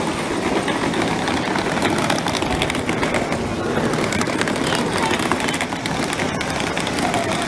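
Ambience of a busy pedestrian plaza: passers-by talking, over a steady hum of traffic.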